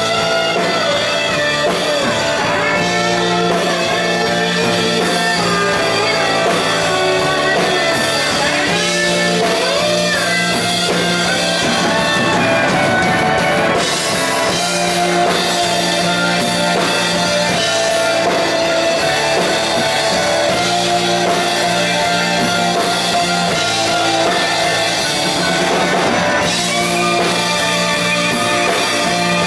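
Electric rock band playing, with electric guitars and a drum kit, mostly instrumental with bending guitar lines.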